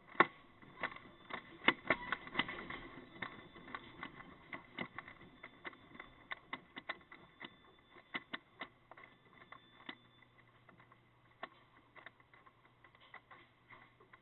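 Merchandise and fittings in a shop rattling and clattering under earthquake shaking: a dense run of rapid clicks and knocks, heaviest in the first three seconds, then thinning to scattered ticks. Heard through a security camera's thin-sounding microphone.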